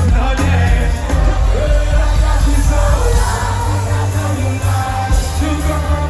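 Live concert music played loud through a festival sound system, heard from inside the crowd: heavy bass with a singer's voice over it.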